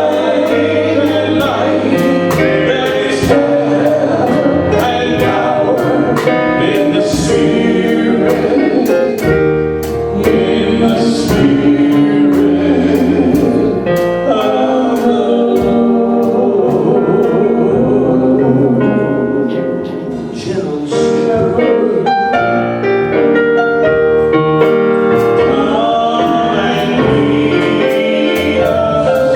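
Gospel music: several voices singing together over instruments with a steady beat.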